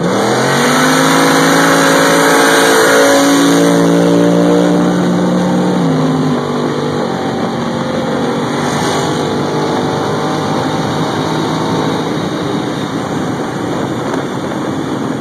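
Iron-block 403 Chevy V8 on a 300-shot nitrous setup, heard from inside the truck's cab, pulling hard at full throttle from a roll, its pitch climbing steeply with a break a little over three seconds in as it shifts. About six seconds in the driver lifts off and the engine note gives way to wind and road noise.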